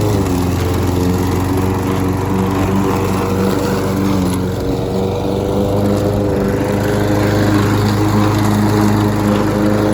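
Gasoline lawn mower engine running steadily while mowing, its pitch dipping briefly just after the start and again about halfway through before picking back up.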